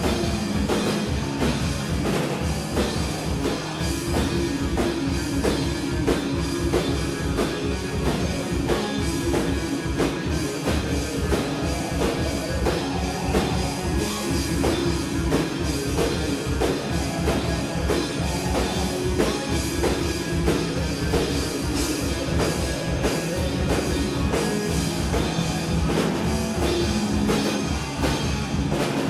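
Live rock band playing: drum kit, electric guitar and synthesizer together, with held low notes under steady dense drumming, recorded from the back of the room.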